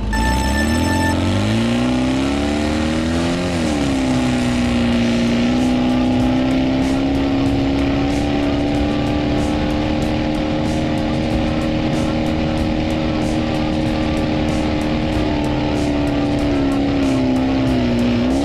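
Sand rail engine revving up as the buggy accelerates, then holding steady at high revs. The pitch dips and climbs back briefly about three seconds in and again near the end, as the throttle eases off and comes back on.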